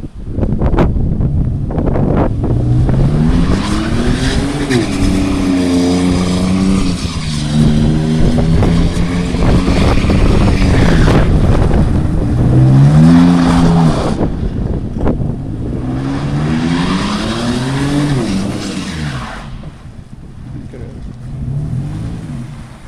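Pickup truck engine revving hard over and over, its pitch climbing and falling several times with long stretches held high, while the tires spin on wet asphalt. It eases off near the end.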